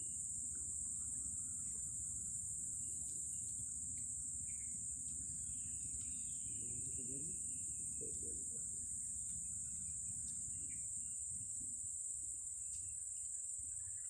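Insects, crickets or the like, chirping in a steady unbroken high-pitched drone over a low background hiss.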